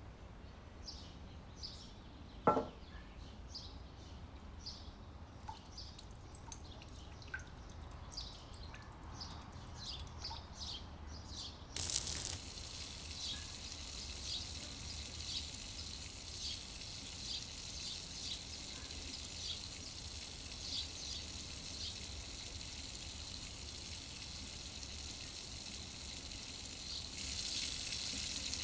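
Potato patties (aloo tikki) shallow-frying in hot oil in a pan: at first only scattered crackles of oil, with one sharp tap about two and a half seconds in. Then from about twelve seconds in a steady sizzle with frequent popping, louder near the end.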